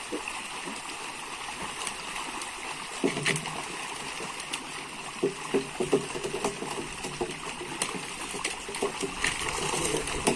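Water splashing and churning as crowded pangasius catfish thrash at the surface inside a harvest net, with irregular sharp splashes that become more frequent from about three seconds in.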